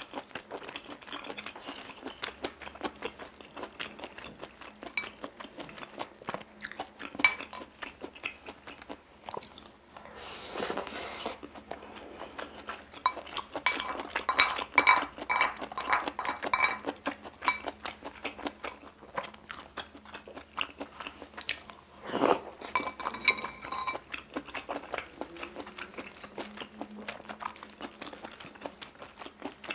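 Close-miked chewing and biting of spicy stir-fried octopus and chewy bunmoja glass noodles, with many small wet clicks. A spoon scrapes and clinks in a ceramic bowl about halfway, and a sharper clink of utensils comes about two-thirds in.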